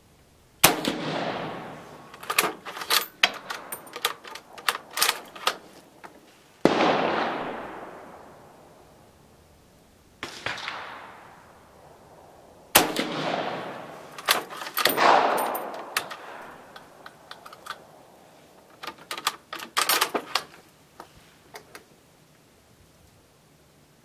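6.5mm Carcano M38 short rifle firing cast-bullet loads: several single shots a few seconds apart, each with a long fading echo. Between shots come quick runs of metallic clicks as the bolt is worked to chamber the next round.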